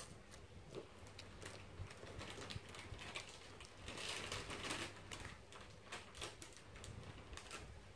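Folded banana-leaf petals rustling and crackling faintly under the fingers as they are pressed into place, with scattered small clicks and a louder crinkly rustle about four seconds in.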